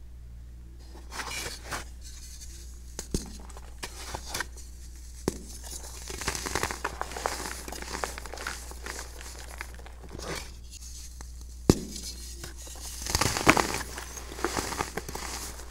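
Hands crushing and crumbling chunks of set baking soda: gritty crunching and crackling in irregular bursts, with a few sharp snaps as pieces break off. The loudest squeezing comes near the end.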